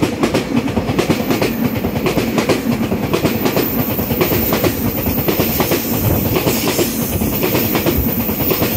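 Taiwan Railways EMU3000 electric multiple unit running through the station at speed close by. Its wheels clatter over the rail joints in a rapid, unbroken run of clacks.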